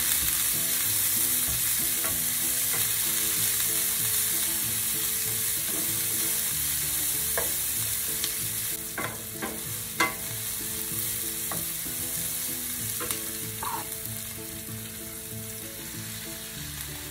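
Sliced onion frying in oil in a pan, sizzling steadily as it cooks down toward translucent, stirred with a wooden spoon. A few short, sharp clicks of the spoon against the pan stand out in the middle, and the sizzle eases off toward the end.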